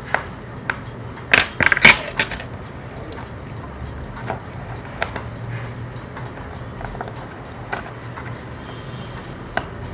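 Small sharp clicks and taps of a watchmaker's screwdriver and tweezers against a wristwatch movement and its metal holder, with a cluster of louder clicks and clatter about a second and a half in, then single light ticks every second or so.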